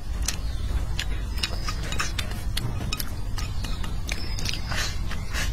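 Close-up chewing of a mouthful of soft rice: irregular wet mouth clicks, several a second, over a steady low rumble.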